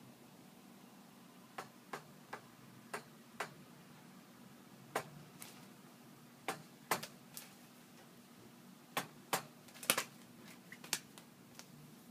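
African grey parrot in a shallow water bath making sharp, irregular clicks, roughly one to two a second with gaps, starting about a second and a half in.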